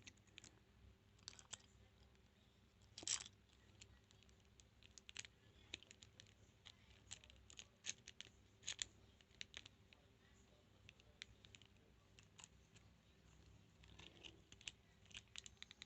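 Faint, irregular metal clicks and light scratching of a lock pick working the pins of a transparent practice padlock, with a sharper click about 3 seconds in and again near 9 seconds.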